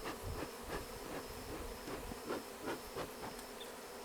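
Many honeybees flying around a hive, a steady buzzing hum with brief ticks scattered through it.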